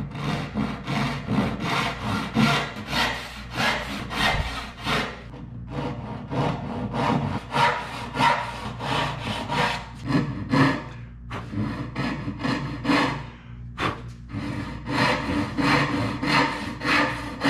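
Back-saw (dovetail saw) cutting by hand into the end grain of a wooden board, in quick even push-and-pull strokes about two to three a second, with a few short pauses. The saw is ripping down the cheeks of twin tenons on the waste side of the layout lines.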